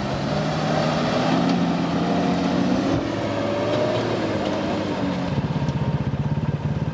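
Mercedes round-nose truck's diesel engine working as it drives through soft dune sand, its revs rising a little and then easing. From about five seconds in the engine note turns into a rapid pulsing.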